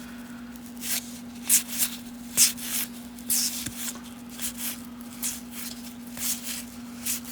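1990 Topps baseball cards being flipped and slid one by one through the hands, a dozen or so short papery swishes at an uneven pace, over a steady low hum.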